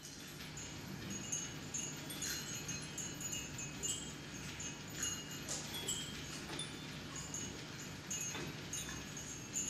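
Small hanging copper cone bells tinkling irregularly, light high metallic pings and clinks scattered through, over a steady low hum.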